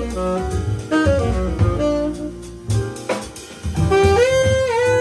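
Live jazz: a saxophone plays a moving melodic line over piano, upright double bass and a drum kit, then holds one long note near the end.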